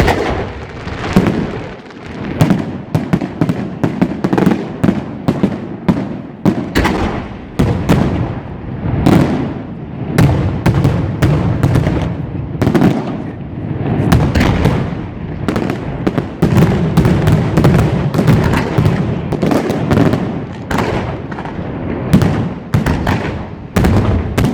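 Fireworks display in full fire: a rapid, irregular barrage of sharp bangs and shell bursts over a continuous low rumble of reports.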